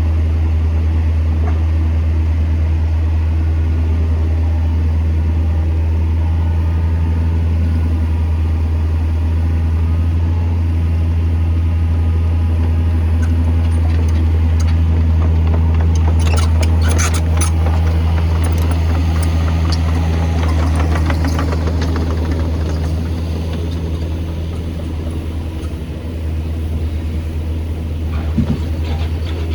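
Backhoe's diesel engine running steadily with a deep drone. About halfway through comes a stretch of clattering and knocking, and there is a single sharp knock near the end.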